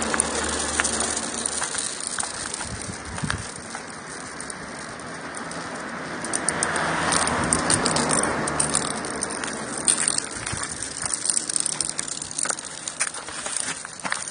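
Marbles rolling and clattering along a marble run, with a rushing rolling noise and many small clicks as they knock against the track and each other.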